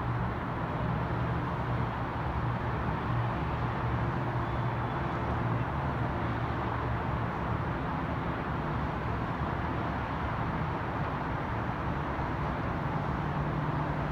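Steady distant city traffic din heard from high above a busy downtown street, with a low hum underneath.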